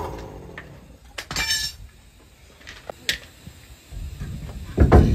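A few sharp metallic clinks and knocks, one with a brief ring, then a louder low rumbling sets in near the end.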